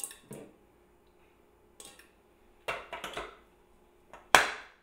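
Stainless steel mixing bowl handled and fitted onto a stand mixer: a few light metallic knocks, then one sharp clank near the end as the bowl is set in place.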